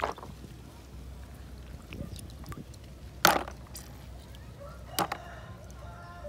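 Hands gathering snails from shallow water into a plastic basin: a few short sharp clacks and splashes, the loudest about three seconds in and another about five seconds in, over a low steady rumble.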